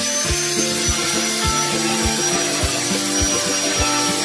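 Background music with a steady drum beat and stepping melody, over the thin high whine of an electric angle grinder sanding the metal fan blades.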